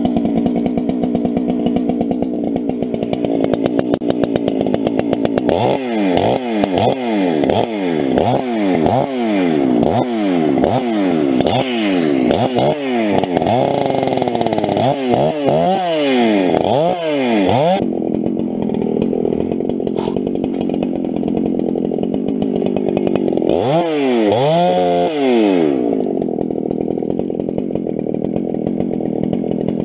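Husqvarna 394 two-stroke chainsaw cutting through a log. The engine pitch falls and recovers over and over in two runs, with steadier running before, between and after.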